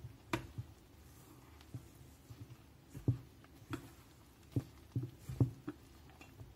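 A silicone spatula stirring flour and yeast water into a bread dough in a stainless steel bowl. It gives irregular, quiet knocks and scrapes against the bowl as the wet flour is worked together.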